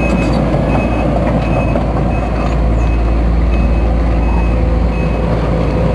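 Case CX210B hydraulic excavator running steadily under test, engine and hydraulic pump humming with no growl from the main pump: the pump noise is cured. A travel alarm beeps about three times a second throughout.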